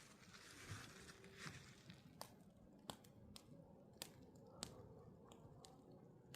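Faint crackling of a wood campfire: sharp, irregular pops of burning wood, about one every half second from about two seconds in, over a soft hiss.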